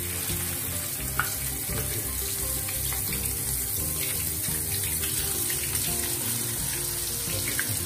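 Marinated safi (rabbitfish) fillets sizzling steadily as they deep-fry in hot sunflower oil, with fresh pieces being laid into the pan.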